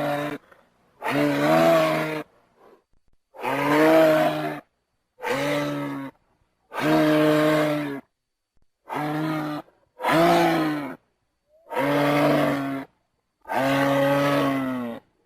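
Giraffe calls: a low-pitched, steady call repeated about nine times, each lasting roughly a second, with clean silent gaps between them.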